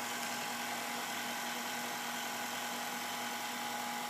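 KitchenAid stand mixer motor running at a steady speed, its beater churning hot water in the stainless steel bowl: an even electric hum holding one constant pitch.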